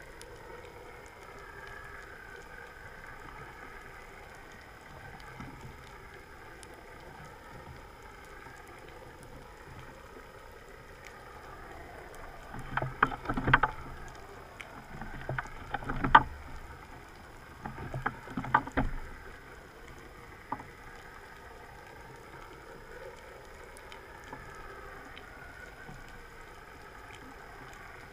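Underwater ambience with a steady hum that wavers slowly in pitch, like a boat motor heard through the water. About halfway through comes a cluster of sharp knocks and crackles that lasts several seconds.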